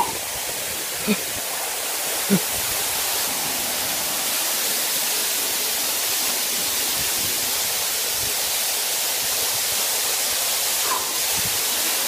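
Waterfall heard close up: a steady, even rush of falling water and spray. Two brief thumps a little over a second and about two seconds in.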